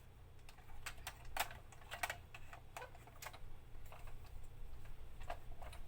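Irregular clicks and taps of hard plastic toy parts being handled and pushed together while fitting a piece onto a plastic toy dog.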